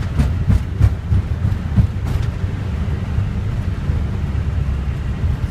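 Airbus A320 rolling out on the runway after touchdown, heard inside the cockpit: a steady low rumble, with a handful of knocks and rattles in the first two seconds.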